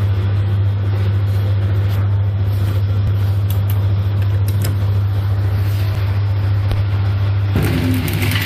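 Pillow-type flow packing machine running with a steady low hum. Near the end a louder rattling noise joins in.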